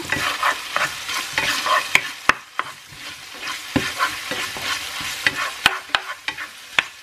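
Chicken pieces and freshly added spice paste sizzling in a nonstick frying pan while a plastic spatula stirs and scrapes through them, with frequent sharp taps of the spatula against the pan.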